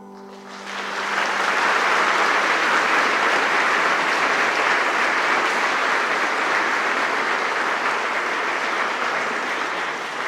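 The choir's last held chord dies away, and an audience's applause breaks out about half a second in, swelling within a second and then going on steadily.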